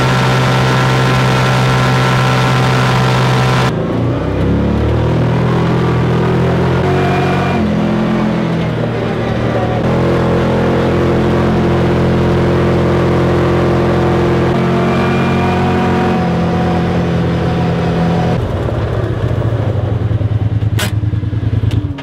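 Vehicle engine running under way on a dirt road. Its note holds steady for long stretches, shifts pitch a few times and rises briefly about four seconds in.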